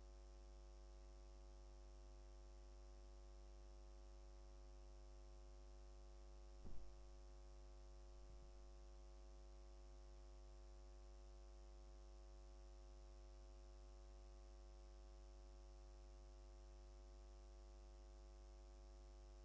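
Near silence filled by a steady low electrical mains hum, with one brief soft knock about a third of the way through.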